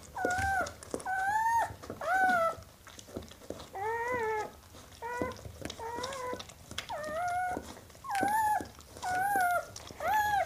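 Newborn puppies crying: a run of about ten short, high, wavering squeals, roughly one a second.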